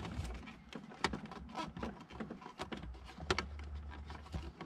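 Hands working loose plastic interior trim and wiring harness connectors: scattered light clicks, knocks and rustling.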